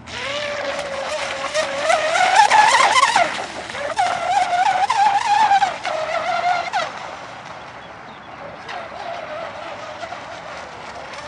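Brushless electric RC catamaran speedboat running at speed, its motor and propeller whine wavering up and down in pitch with the throttle. It is loudest in the first seven seconds, then fades and rises in pitch again near the end.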